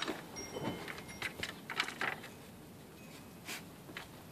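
Cats pawing and batting at a plastic cat toy with a carpet scratch pad, making a scatter of light clicks and scuffs, loudest at the very start and again just under two seconds in.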